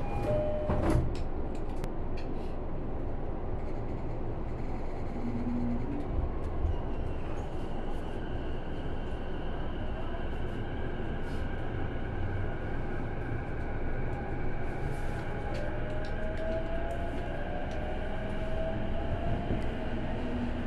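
Cabin running sound of a Keihin-Tōhoku Line E233-1000 series electric train between stations: a steady rumble of wheels on rail with a few sharp clicks near the start. Motor whine rises gently in pitch over the last few seconds.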